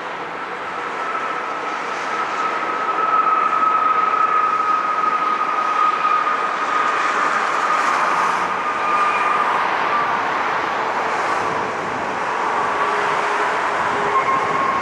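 Boeing 737 MAX 8 airliner's CFM LEAP-1B jet engines as it lands and rolls out on the runway: a loud rushing noise with a steady whine that sinks slowly in pitch, growing louder about three seconds in.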